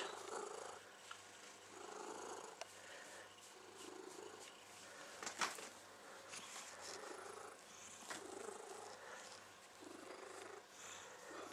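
Domestic cat purring steadily, the purr swelling and easing about every second and a half with its breathing. A single sharp click about halfway through.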